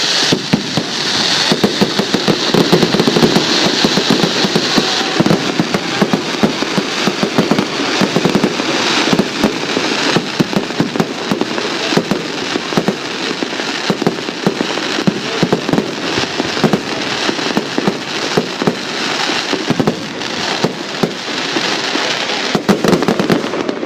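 Fireworks display: a dense, continuous crackle of many small bangs and pops in rapid succession.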